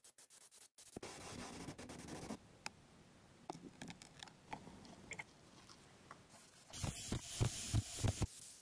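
Small clicks and scrapes of handling while paint is poured into a spray gun's cup. Near the end comes a loud hiss of a paint spray gun spraying for about a second and a half, with a few low thumps underneath.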